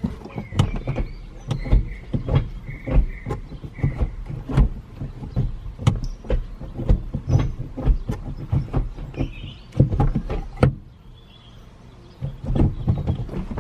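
Rapid irregular clicks and knocks, with a few light squeaks, from handling the newly fitted short shifter and the plastic console trim around it. The knocks pause briefly about two-thirds of the way through, then start again.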